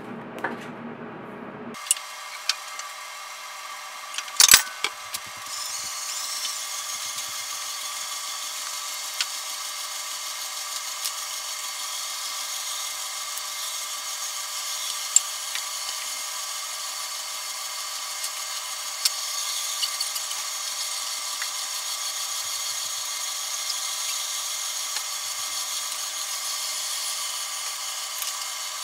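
KitchenAid stand mixer motor running steadily with a whine, driving the fruit and vegetable strainer attachment's auger as tomatoes are pushed through. A loud click comes about four seconds in, and the running grows louder about a second later.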